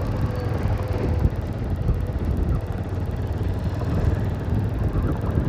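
Wind buffeting the microphone while riding a TVS Apache RTR 160 4V motorcycle, with the engine and road noise rumbling underneath.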